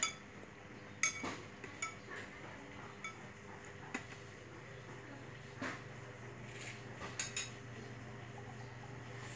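Metal utensils clinking against pots and bowls: about a dozen irregular, separate clinks, some of them ringing briefly.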